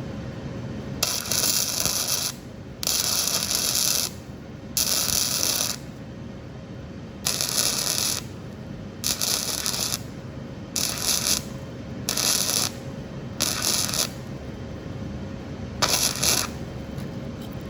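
Flux 125 flux-core MIG welder arc crackling in about nine short bursts with gaps between them, as a nut is filled with weld on a broken exhaust manifold stud.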